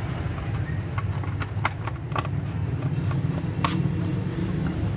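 Screwdriver clicking and ticking against the screws of an LED ceiling panel light's back plate as they are undone, a few sharp ticks at uneven intervals, the loudest a little over three and a half seconds in. A steady low rumble underlies it.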